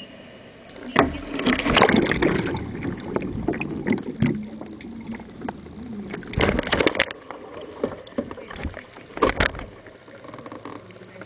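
Water splashing and gurgling as a whitewater kayak capsizes and is rolled back upright, heard from a camera on the bow that goes under the water. A loud splash about a second in, then churning water, with sharp splashes around six to seven seconds and again near nine seconds.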